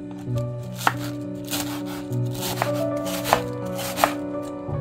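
A knife chopping on a cutting board in a few separate, unevenly spaced strokes, over background music.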